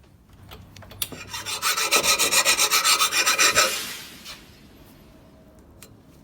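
A metal hand tool worked in quick, even strokes, about six or seven rasping strokes a second, for a little under three seconds before it stops.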